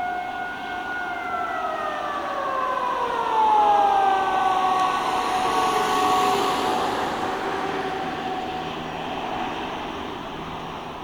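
Outdoor civil defence sirens holding a steady tone, then winding down, their pitch sliding slowly lower for several seconds as they run out. A broad traffic-like rush swells and peaks in the middle.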